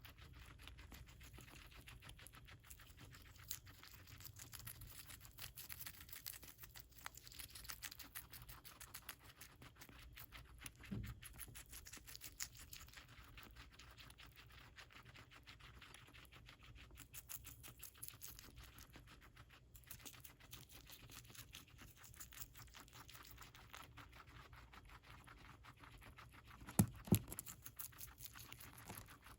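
Guinea pig chewing lettuce: a quiet, continuous run of rapid small crunching and tearing clicks. Near the end there are two sharp knocks in quick succession.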